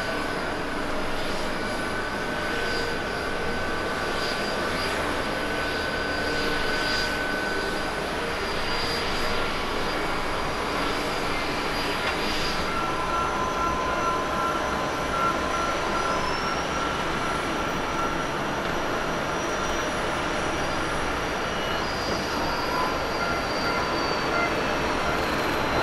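Boeing 777 jet engines running as the airliner rolls out along the runway after landing: a steady rush with several high whines that come and go, and a higher whine rising about two-thirds of the way through.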